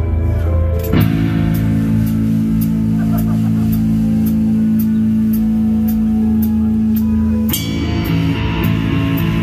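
Loud heavy metal music at a live concert, guitar and drums. About a second in, a low sustained chord starts sharply and rings over a steady high ticking beat, then the music shifts near the end.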